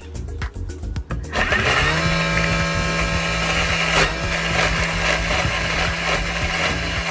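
Thermomix food processor starting to blend: its motor spins up, rising in pitch, about a second in, then runs at a steady speed, chopping the mixture with a little water added. A knock about four seconds in.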